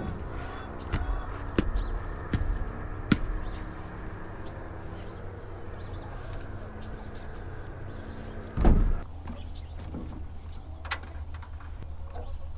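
Knocks and clunks of wooden boards against the metal side of a chicken trailer as it is opened up: several sharp knocks in the first three seconds and a heavier thump, the loudest sound, near the end. Chickens call faintly inside over a low steady hum.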